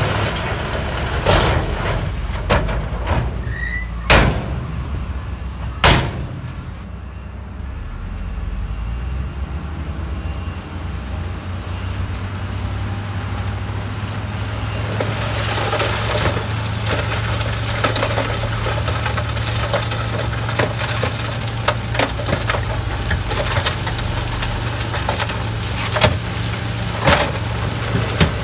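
A dump truck's diesel engine runs steadily while it tips a load of rock. Several loud bangs come in the first few seconds, and from about halfway through the rocks clatter and rattle as the load slides out of the raised bed.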